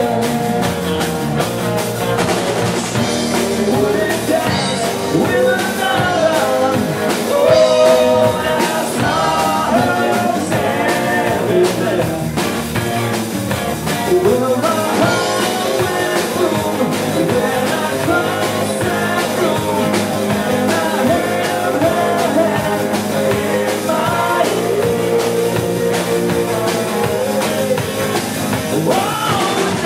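Live rock band: a man singing lead over strummed acoustic guitar, bass and drums.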